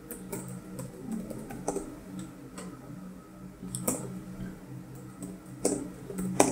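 Typing on a computer keyboard: irregular key clicks, some keystrokes louder than others.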